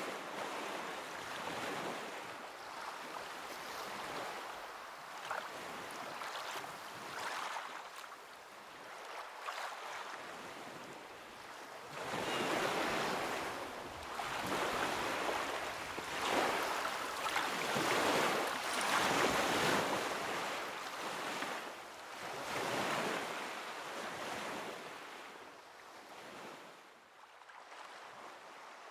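Waves washing in, the rushing noise rising and falling in irregular swells every second or two, loudest in the middle and fading near the end.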